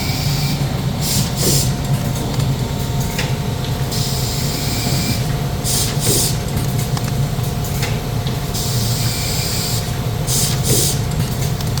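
Rigid box making machinery (a gluing machine and a box forming machine) running: a steady low hum and tone under bursts of hiss that come round about every four to five seconds in a working cycle.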